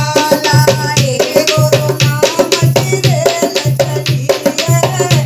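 Women singing a devotional bhajan to a dholak, with hand strokes on the drum heads and a small stick beating on the drum. The deep drum note comes back about once a second under quicker sharp strokes, giving a steady beat.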